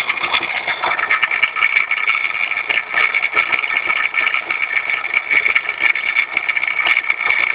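Renault Master diesel engine running, heard from under the front at the crankshaft pulley, with a steady high-pitched whine over it. The pulley's rubber damper layer has burst, so the outer belt ring stops while only the centre turns with the crankshaft: the belt noise the owner complained of.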